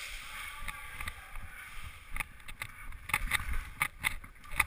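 Rustling and rumbling of a player moving with gear through an indoor airsoft course. About halfway through, an irregular run of sharp clicks and knocks starts.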